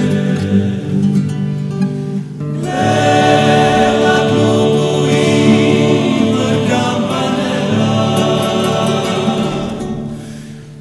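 Background music: a choir singing a song in harmony, holding long notes, fading down near the end.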